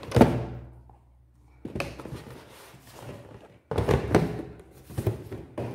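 A sharp thunk just after the start, then rustling and knocking as cardboard shoe boxes and plastic shoes are handled and moved.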